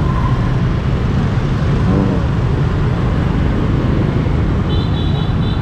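Street traffic heard from a bicycle in city traffic, a steady dense rumble of passing vehicles. A short run of quick, high beeps comes near the end.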